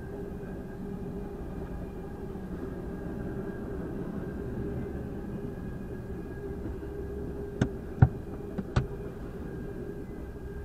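Freight train rolling past a grade crossing, heard from inside a stopped car: a steady rumble of cars going by. About three quarters of the way through come four sharp knocks in quick succession.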